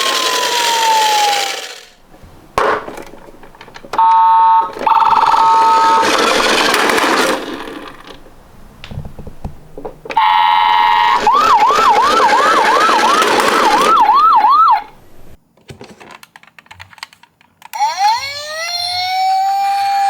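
Toy ambulance siren sounding through several patterns in turn, with short pauses between: a single falling tone, an alternating two-tone call, a fast repeating rise-and-fall yelp, and near the end a rising wail that levels off into a steady tone. Beneath the first three runs a noisy hiss.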